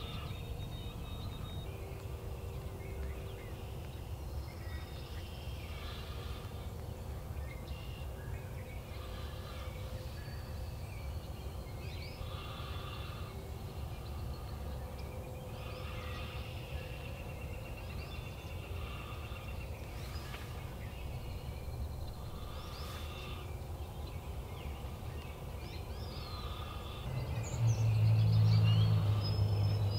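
Outdoor ambience of scattered bird calls over a steady low rumble. Near the end a louder low hum comes in.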